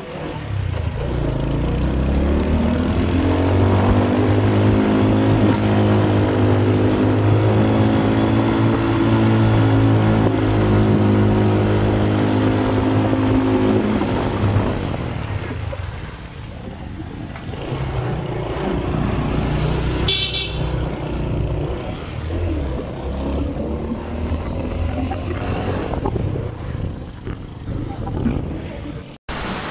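Motorcycle engine running at a steady pitch, heard from on board. About halfway through, its note gives way to a rushing noise. A short horn toot sounds about twenty seconds in.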